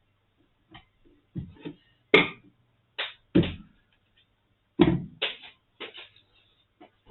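Irregular knocks and clicks of a screwdriver and hands handling a Brüel & Kjær 2250 sound level meter during reassembly, about a dozen in all, the loudest about two seconds in and near five seconds in, over a faint low hum.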